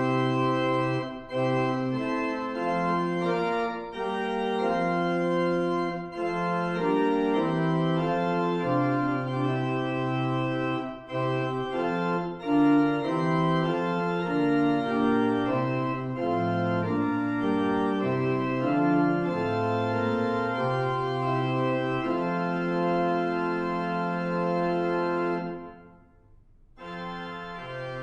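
Organ playing a hymn tune in sustained block chords, the chords changing every second or so. Near the end it breaks off briefly, then starts again.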